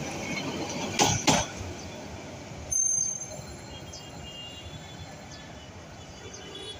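Bangladesh Railway Titas Commuter train's passenger coaches passing on the track. Their wheels clack twice over rail joints about a second in, with a brief sharp sound near three seconds, then a steady rumble that fades as the last coach moves away.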